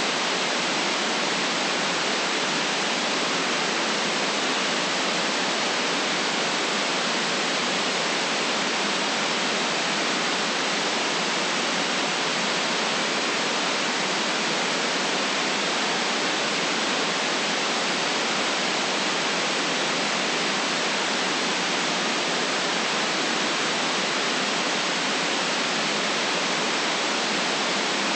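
Steady, unchanging white noise: an even hiss with the deep bass and the highest treble cut off.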